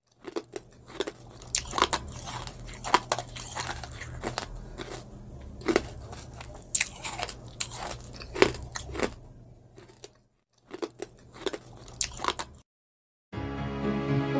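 Close-miked crunchy biting and chewing: irregular crisp crunches, a few pauses between them. Music starts near the end.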